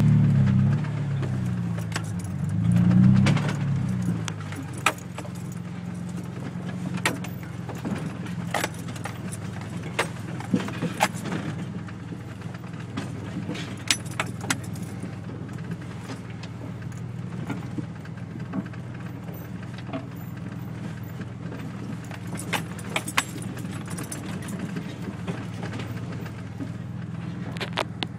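1988 Toyota pickup's 22RE four-cylinder engine heard from inside the cab. It revs up and down twice in the first few seconds, then runs steadily at crawling speed, with sharp rattles and knocks from the cab as the truck works over the rough trail.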